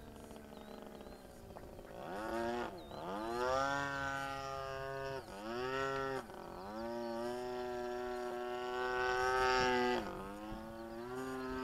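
Model airplane's motor and propeller running in the air with a steady buzzing tone, dropping sharply in pitch and picking up again three times as the throttle is eased and reapplied.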